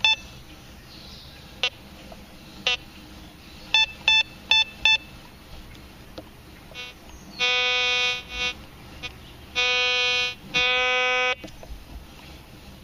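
Teknetics Eurotek Pro metal detector giving target tones: several short high beeps as the coil passes over a buried target reading in the 70s to 80s, an iffy signal that may be deep or junky. After the pinpoint button is pressed, three longer, lower steady tones of about a second each follow as the target is pinpointed.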